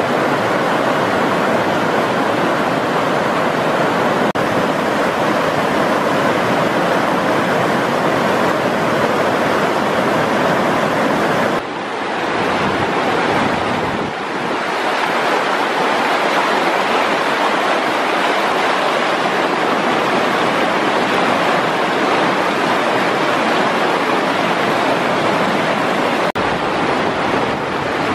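Shallow river rapids rushing over rocks: a steady, loud roar of white water. The level dips briefly about twelve seconds in and again near the end.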